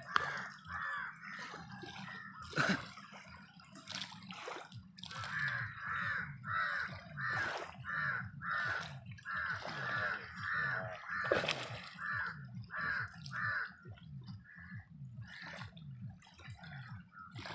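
A bird calling over and over, about two calls a second, with a few sharp clicks and some water sound.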